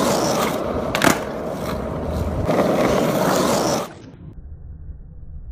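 Skateboard wheels rolling on asphalt, with a sharp clack from the board about a second in. Shortly before the last two seconds the rolling cuts out and only a faint, muffled low rumble is left.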